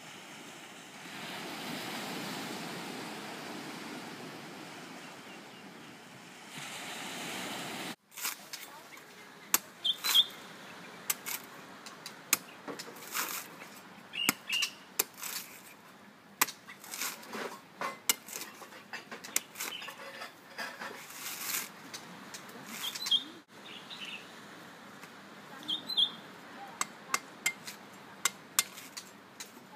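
A steady rushing noise, then a large knife chopping at a coconut's fibrous husk to open it: irregular sharp chops, with birds chirping now and then.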